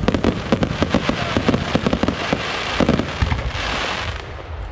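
Aerial fireworks going off: a rapid run of sharp pops and bangs, then, from about two seconds in, a dense crackling hiss as the shells burst.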